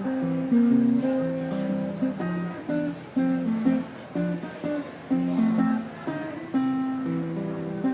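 Music on a plucked string instrument: chords struck and left ringing, a new one about every second.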